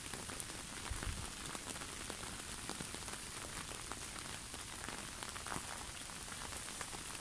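Steady rain falling on a lake's surface: a soft, even hiss dotted with many small drop ticks.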